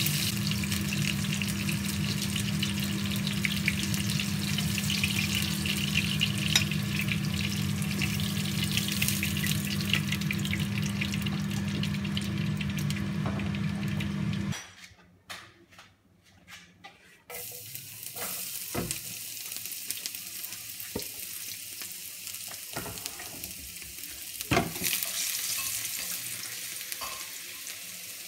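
Salmon fillets frying in hot oil in a nonstick pan: dense, steady sizzling and crackling. About halfway through it cuts out abruptly for a few seconds, then quieter sizzling of the bare oil resumes. A sharp knock comes near the end, followed by louder sizzling as chopped garlic fries in the oil.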